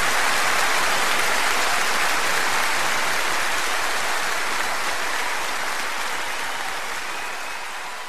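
Applause, a dense steady clapping from a group, slowly fading out.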